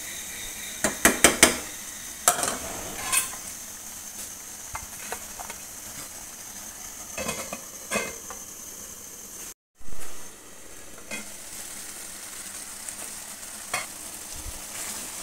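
Chicken and potato curry sizzling steadily in an aluminium pot, simmering in a little water while the diced potatoes soften. A metal spoon knocks and scrapes against the pot in a quick run of strokes about a second in, with a few more knocks now and then, one of them the metal lid being set on.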